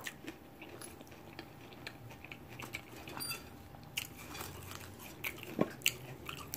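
A person chewing food close to the microphone, with wet mouth sounds. From about four seconds in come a few sharper crisp cracks as pieces of a fried tortilla tostada shell are broken off by hand.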